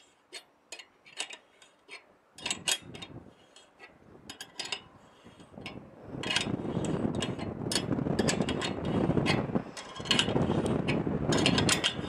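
Microwave antenna mount's elevation adjustment being worked: scattered sharp metal clicks, then from about six seconds in a dense rasping, clicking run that breaks off briefly near the ten-second mark.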